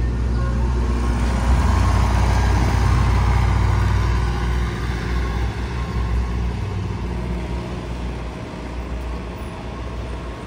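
Ice cream truck's engine pulling away and driving off: a low rumble that is loudest over the first few seconds and fades steadily as the truck moves off down the street.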